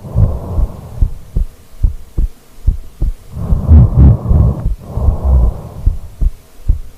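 A sleeping woman's heartbeat, picked up through her body as she lies on the microphone: a steady run of soft, low thumps. Midway, a long snoring breath in and out rises over it and is the loudest sound.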